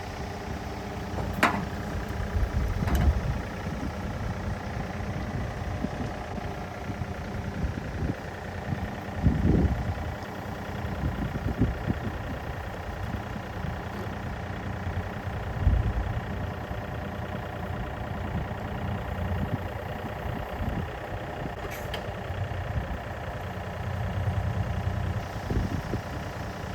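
Yanmar ViO35-6a mini excavator's diesel engine running steadily, with a few sharp clanks and low thumps scattered through.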